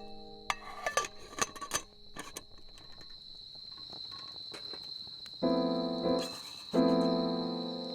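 Crickets trilling steadily, with a few sharp clicks in the first two seconds. Keyboard or piano background music comes in about five and a half seconds in and plays again shortly before the end.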